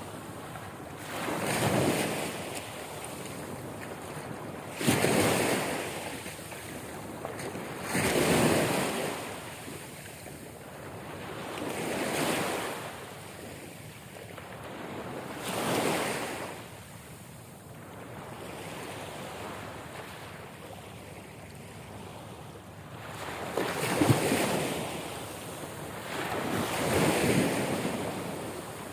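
Sea waves surging and washing in, each swell rising and falling every three to four seconds, with a calmer stretch midway.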